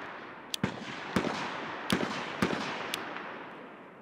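SCCY CPX-2 9mm pistol firing four shots, about half a second apart, each trailing an echo. A few lighter, sharp clicks fall between the shots.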